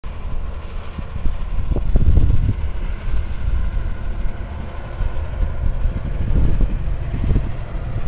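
Wind buffeting the microphone in gusts, over the steady hum of distant highway traffic.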